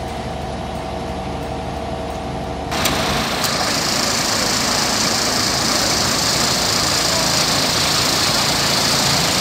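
Fire engine running steadily at idle. About three seconds in, the sound switches abruptly to a louder, hissier running, heard close beside the truck.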